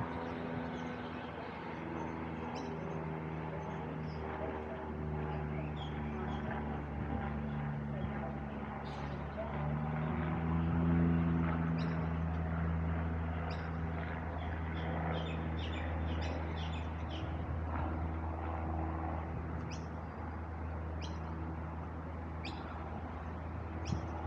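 Steady low mechanical hum with drone tones that shift slowly in pitch and swell a little about ten seconds in, with scattered bird chirps over it.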